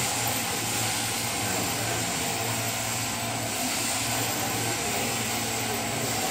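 Machine sheep-shearing handpiece running steadily, its comb and cutter clipping through a sheep's fleece.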